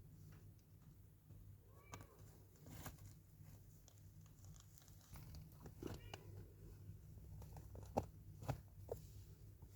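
A domestic cat giving a couple of faint short meows, about two seconds in and again around six seconds, among scattered light clicks and taps over a low steady hum.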